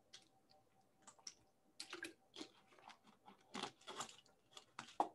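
Faint, irregular clicking of computer keyboard keys, about a dozen light taps spread unevenly over a few seconds.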